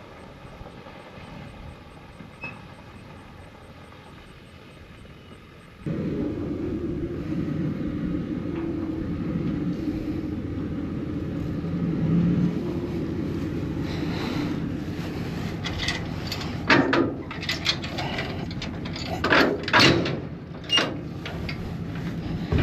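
A vehicle running. It is steady and fairly quiet at first, turns suddenly louder about six seconds in, and in the last several seconds is broken by a string of short, sharp clanks and rattles.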